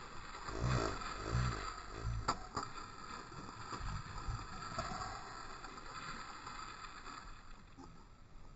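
Water splashing and sloshing against the side of a boat, with a few low thuds in the first two seconds and two sharp clicks just after two seconds in, then easing off toward the end.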